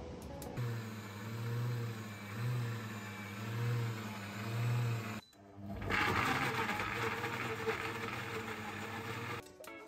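High-speed countertop blender running, grinding oats into flour with a steady motor hum that swells about once a second. After a brief break about five seconds in, it blends a wetter batter with a louder rushing sound.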